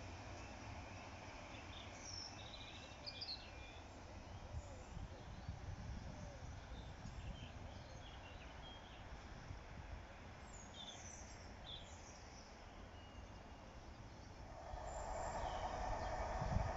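Faint outdoor ambience with small birds chirping now and then. About two seconds before the end, an approaching train starts to be heard, a steady hum and low rumble growing louder.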